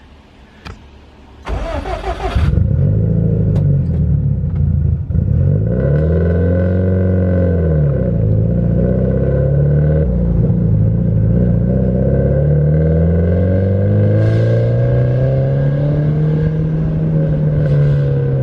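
Turbocharged Subaru WRX flat-four with a straight-pipe exhaust, driven hard: after a short burst of hiss about two seconds in, the engine comes in loud and its pitch rises and falls again and again as it revs up and drops back, ending on a long slow climb.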